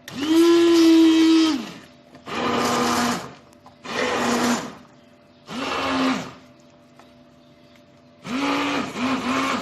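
Electric blender puréeing cooked apricot jam in five short pulses, the first the longest and loudest; the motor's pitch drops away as each pulse winds down.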